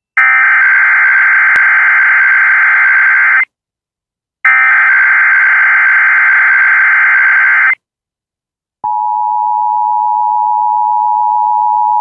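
Emergency Alert System transmission: two bursts of SAME digital header data, each about three seconds long with a short gap between, followed about two-thirds through by the steady two-tone EAS attention signal.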